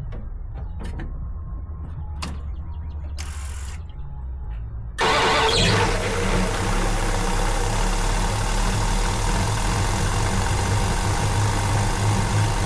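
1990 Dodge Ram 150 pickup's throttle-body-injected engine starting about five seconds in, catching at once without long cranking, then idling steadily. It runs a little off, which the owner puts down to injectors and emissions system still contaminated by fuel that leaked past bad injector O-rings. Before the start there are a few light clicks and a short rushing noise.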